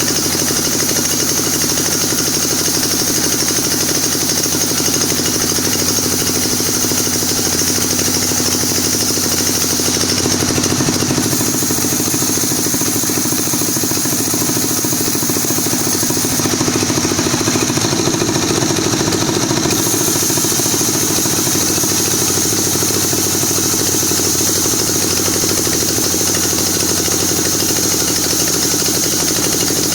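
Sawmill saw running steadily under power, a loud continuous machine noise with a high hiss over a low hum; about 18 seconds in, the low hum steps up in pitch.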